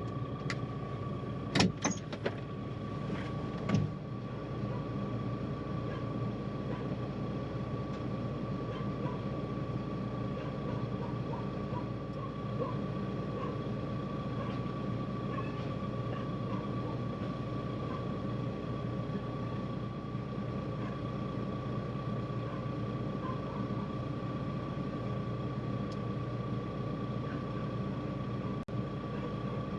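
Diesel engine of farm equipment running at a steady speed, with a constant high whine over it. A few sharp knocks in the first few seconds.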